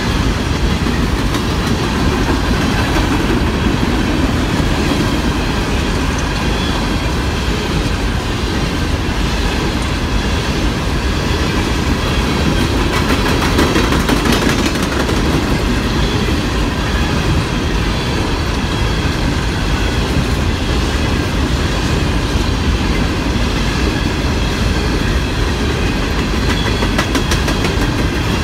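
Freight train of coal gondola cars rolling past close by: a loud, steady rumble of steel wheels on the rails.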